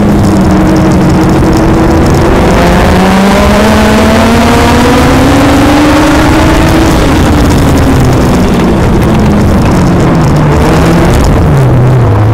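Legend car's four-cylinder Yamaha motorcycle engine at racing speed. A brief drop in pitch about two seconds in, then the pitch climbs for several seconds as the car accelerates, then falls steadily as the driver lifts, with a short jump near the end.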